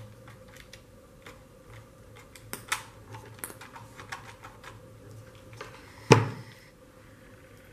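Small irregular clicks and taps of hot-glue-gun work, the glue gun's trigger and buttons being pressed onto a wooden frame, then one loud thump about six seconds in as the glue gun is set down on the table.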